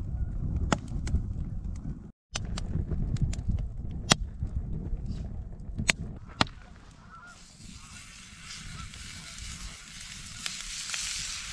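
Wood campfire crackling and popping over a low rumble. About seven seconds in, raw meat laid on the grill grate over the fire starts sizzling with a steady hiss.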